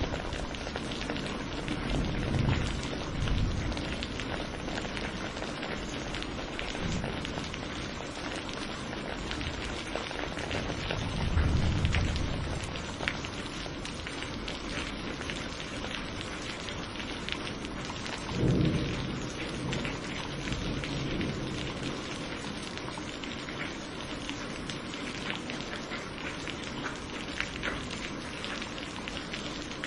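Steady rain falling, with low rumbles of thunder about two seconds in, again around eleven to twelve seconds, and a sharper clap at about eighteen seconds.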